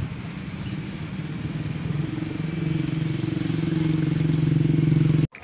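A motor vehicle's engine running nearby with a steady low hum that grows gradually louder, as if approaching, then cuts off suddenly near the end.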